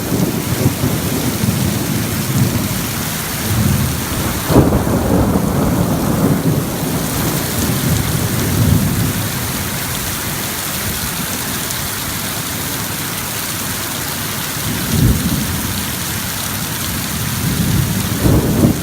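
Heavy rain pouring in a storm, a steady dense hiss with low rumbling swells that come and go, and one sudden loud hit about four and a half seconds in.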